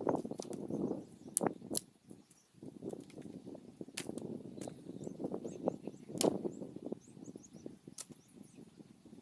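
Dry sticks snapping sharply about five times, among the crunch and rustle of dry brush and leaves being trampled and handled while firewood is gathered.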